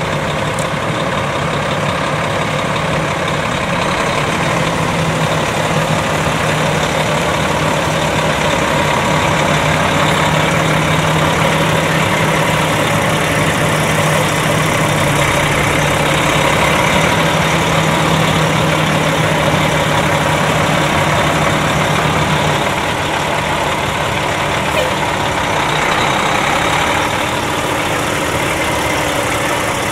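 Kenworth T660's Caterpillar diesel engine idling steadily, a continuous low hum that eases slightly about two-thirds of the way through.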